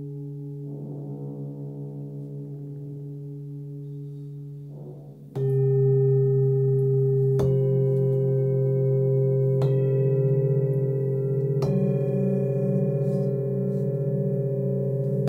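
A 23.5 cm hand-hammered Nepalese singing bowl tuned to D, about 143 Hz, rings with a steady hum of several overtones and wavers briefly about a second in. About five seconds in, louder singing bowls take over: a bowl is struck, and a new stroke comes about every two seconds, each adding fresh ringing tones over a lasting drone.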